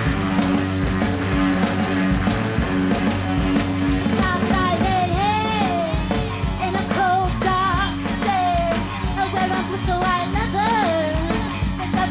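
Live rock band playing: electric guitar and drums, with a woman singing over them from about four seconds in.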